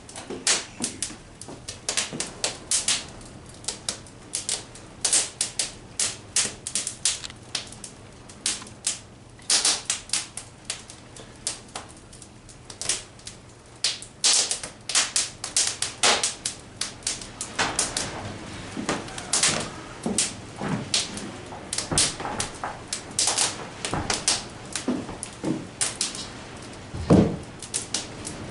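Fire crackling in a fireplace: irregular sharp pops and snaps, several a second, with one louder, deeper pop a little before the end.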